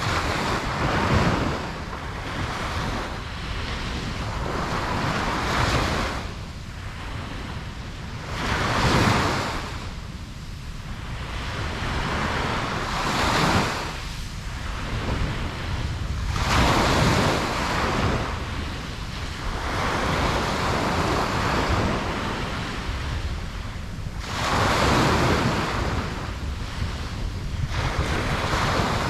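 Ocean waves breaking on a beach, one surge swelling and falling back every three to four seconds over a steady low rumble of surf, with some wind on the microphone.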